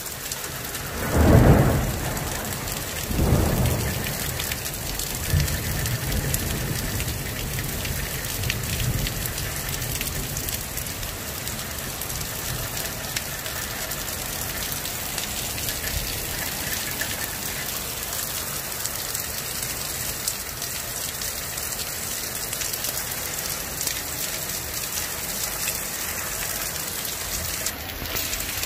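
Heavy thunderstorm rain pouring steadily, with two loud claps of thunder, one about a second in and a second about two seconds later.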